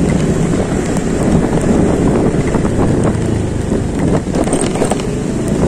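Wind rushing over the microphone on a moving motorcycle, with the bike's engine running underneath. A few light ticks come about four seconds in.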